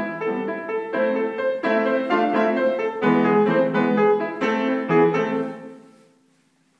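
Piano playing a quick run of struck chords; the last chord rings out and dies away about a second before the end, leaving near silence.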